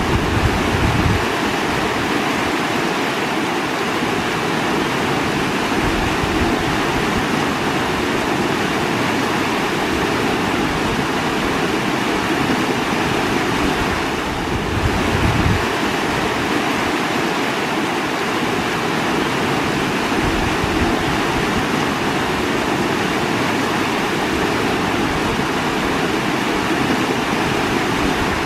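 Running water rushing steadily, with a few brief low rumbles and a short dip in level about halfway through.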